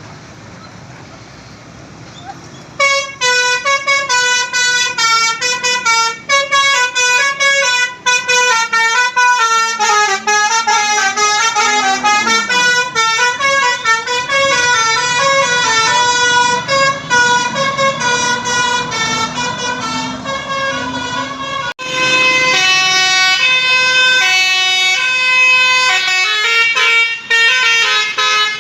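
Bus 'telolet' musical air horn (Basuri type) playing a fast tune of short stepped notes, starting about three seconds in over faint traffic noise. About 22 s in it cuts suddenly to another telolet horn tune.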